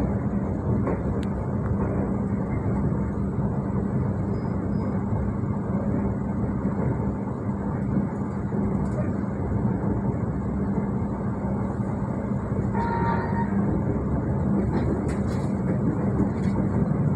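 Passenger train running, heard from inside the coach: a steady rumble with a constant low hum.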